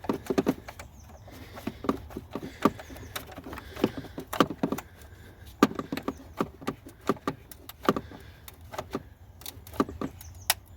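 Ratchet clicking in irregular runs of sharp metallic clicks as a nut is tightened down on the newly fitted 12 V battery.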